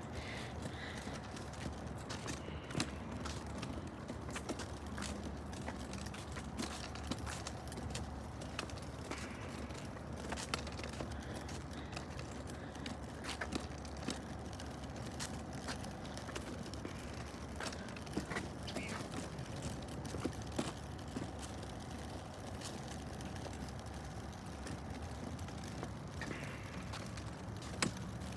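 Outdoor ambience while walking: a low steady rumble with scattered light clicks and taps at irregular spacing.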